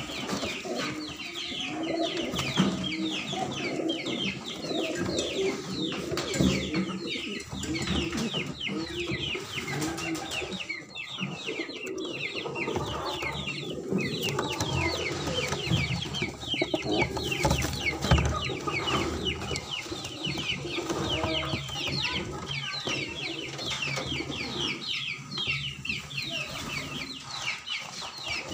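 Pigeons cooing, with constant high, rapid chirping from many other birds.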